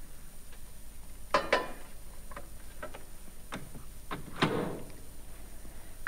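Knocks and clicks of a baking dish being set inside a Sharp microwave oven and the oven door being shut: a close pair of knocks about a second and a half in, and a louder clunk with a short ring a little past four seconds.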